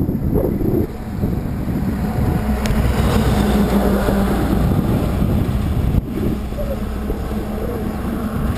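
Concrete mixer truck passing in the oncoming lane, its engine and tyres growing louder and then dropping away, over wind rushing on a bicycle-mounted microphone. A sharp click about six seconds in.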